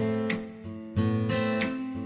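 Background music: acoustic guitar strumming chords, with a fresh strum about every half second.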